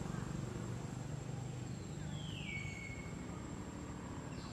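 Outdoor ambience: a low steady rumble and a thin steady high tone, with one whistled call about two seconds in that slides down in pitch and then holds briefly, and a short high note near the end.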